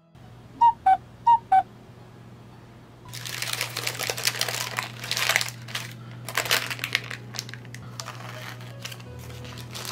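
Parchment baking paper crinkling and crackling as it is peeled off the sides of a baked pound cake, starting about three seconds in. Before that, about a second in, there are four short beeps in two falling pairs.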